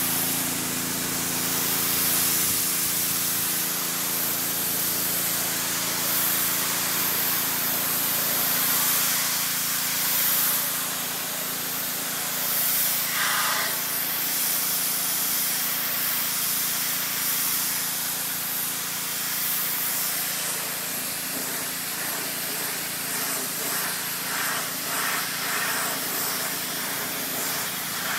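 Pressure washer spraying water in a steady hiss, with a steady low hum running underneath.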